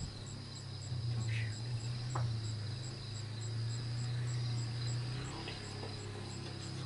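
Night insects calling: a high chirp repeating about four times a second over a steady pulsing trill, with a low steady drone underneath and a few faint short calls.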